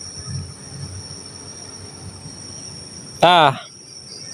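Crickets trilling steadily at night, a constant high-pitched chorus. A bit over three seconds in, a brief voice cuts across it, a short rising vocal sound.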